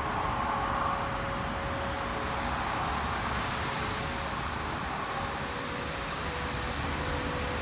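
Steady hum of road vehicle engines and traffic with a faint steady whine that dips slightly in pitch near the end.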